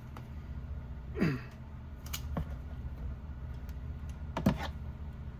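A few short clicks from a hand wire crimper being squeezed onto a terminal, over a low steady hum.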